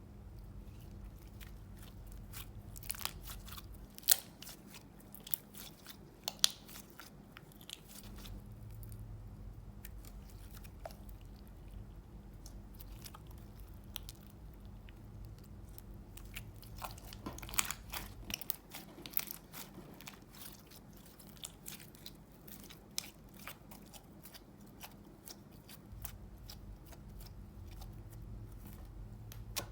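Slime being worked by hand, giving irregular sticky clicks and crackles that come in clusters.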